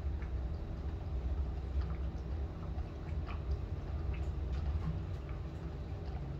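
Typhoon wind and rain heard from inside a building: a steady low rumble with scattered taps and drips of rain.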